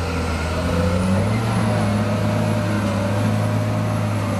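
Caterpillar wheel loader's diesel engine running under load as it pushes into a sand pile. The engine note rises about a second in and then holds steady, with a faint high whine above it.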